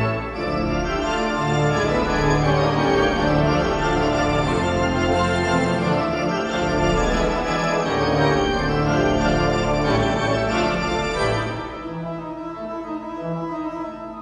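Wurlitzer theatre pipe organ playing full sustained chords over a moving pedal bass. About eleven and a half seconds in it drops to a softer, thinner passage.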